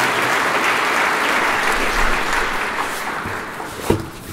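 Audience applauding, thinning out toward the end, with a single sharp knock just before it stops.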